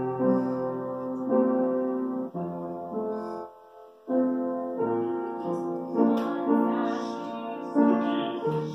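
Piano played at a slow pace: held chords struck about once a second, with a brief pause about three and a half seconds in.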